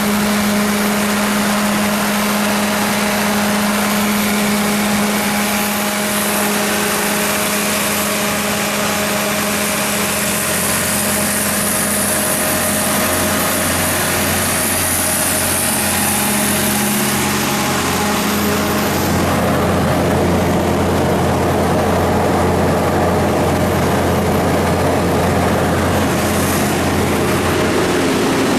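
Cummins diesel engine of a 255 kW Doosan G290 portable generator running steadily. About two-thirds of the way through, the sound turns deeper.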